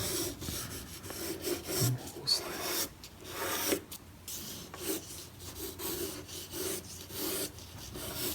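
Pencil scratching on paper in repeated, irregular strokes, sketching and shading a drawing.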